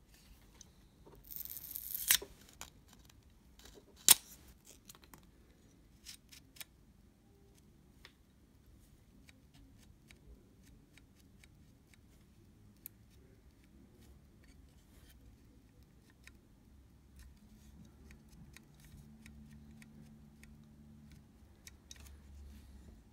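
Small hand tools clicking and tapping during close work on a camera shutter. A brief rasping noise comes about a second in, a sharp click follows about four seconds in, and fainter ticks are scattered through the rest.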